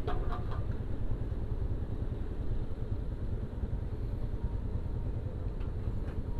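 Yamaha RX-King's 135cc two-stroke single-cylinder engine running steadily, with no revving.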